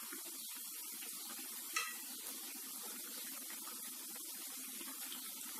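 Sweet appam batter balls deep-frying in hot oil in a kadai: a steady sizzle of oil bubbling around them. One light tap sounds about two seconds in.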